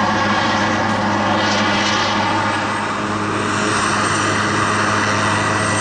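Eurocopter AS332 Super Puma helicopter taxiing: its twin turboshaft engines whine while the main and tail rotors turn, making a loud, steady drone with a low hum underneath.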